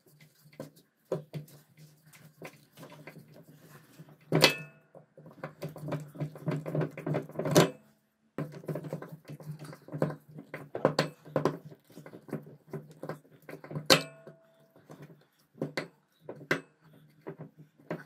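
Hammer tapping a steel punch to drive and peen a metal pin through a machete handle's bolster: irregular light metallic taps, with three much harder strikes.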